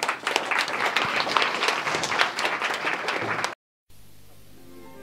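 Audience applauding with dense, even clapping that cuts off abruptly about three and a half seconds in, leaving a faint hiss.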